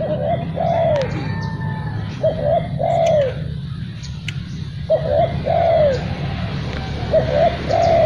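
Spotted dove (tekukur) cooing: four repeated phrases, each a short coo followed by a longer coo that rises and falls, one about every two seconds.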